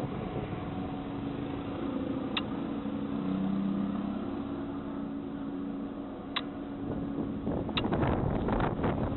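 A steady low mechanical hum, with three short sharp clicks and a burst of rustling noise near the end.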